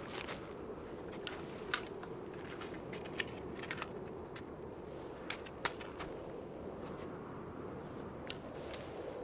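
Steady wind blowing across open snow, with several sharp, separate clicks scattered through it.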